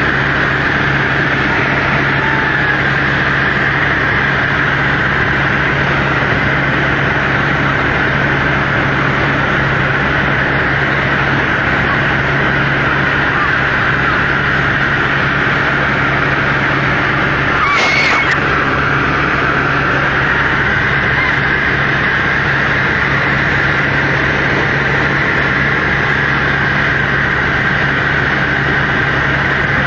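Helicopter cabin noise in flight: the rotor and engine drone steadily, a constant deep hum under a loud rushing hiss. A short sharp sound cuts through about halfway through.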